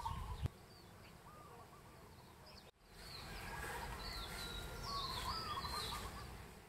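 Birds chirping and calling over a low steady background rumble. Partway through, the sound cuts out for an instant and comes back louder, with more birdsong.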